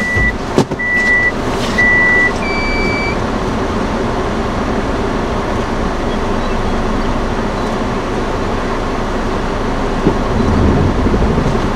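Steady rushing storm wind. Three short high electronic beeps about half a second apart sound over it in the first two seconds, then one slightly longer beep. A low rumble swells near the end.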